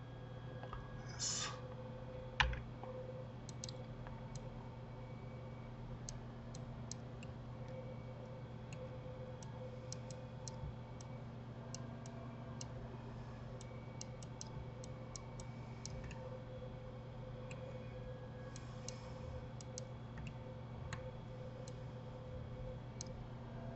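Irregular computer mouse clicks, single and in small clusters, over a steady low hum. There is a short burst of noise about a second in and a single louder click soon after.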